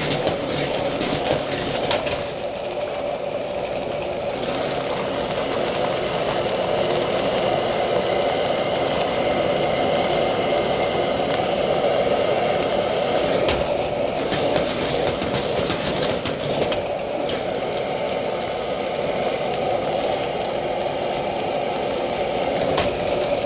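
Slices of radish cake frying in oil in an iron wok over a gas burner: a steady sizzle over the even rush of the burner flame, with a couple of brief clicks about halfway through.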